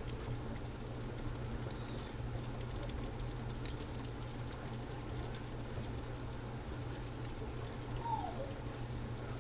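Faint wet sounds of beef curry in the pan, with scattered light clicks over a steady low hum.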